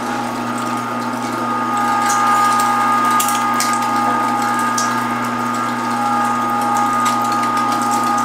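Electric meat grinder's motor running steadily with a constant whine as it grinds chunks of venison pushed down the feed tube with a plastic stomper, with a few light knocks.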